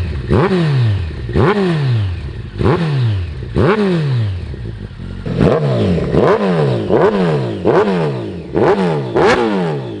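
Campagna T-Rex 14R's Kawasaki ZX-14R inline-four blipped at standstill through Jardine RT5 slip-on mufflers. About ten quick throttle blips, each rising sharply and falling back, coming closer together in the second half.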